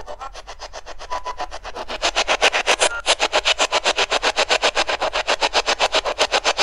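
Spirit box radio scanner sweeping through stations: a choppy stream of static pulses at about ten a second, growing louder about two seconds in.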